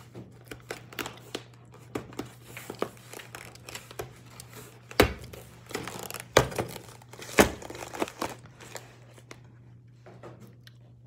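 Wrappers and food containers crinkling and rustling as they are handled and cleared away, with scattered clicks and three louder knocks about five, six and a half and seven and a half seconds in.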